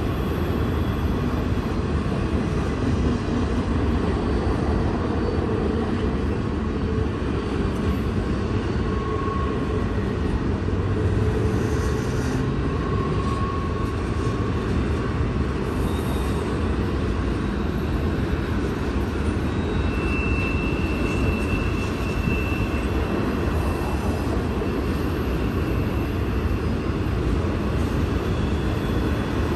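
Intermodal freight train's cars rolling past at steady speed: a continuous low rumble of steel wheels on rail, with a few faint, brief wheel squeals.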